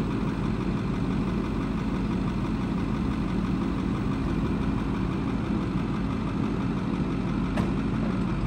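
2008 Ford F350's V8 turbo diesel idling steadily, with one short click near the end.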